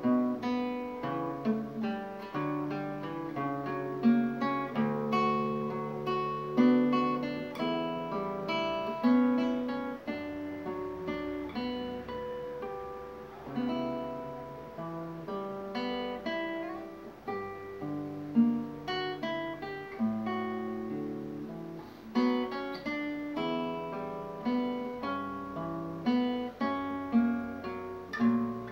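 Solo classical guitar, fingerpicked: a slow melody over bass notes and broken chords, each note ringing on.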